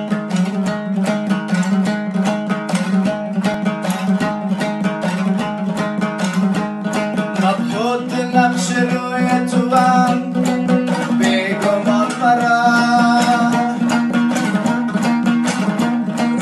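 Afghan dambura strummed rapidly, a fast-picked melody over a steady low drone. About halfway through, a man's voice joins with long held notes in song.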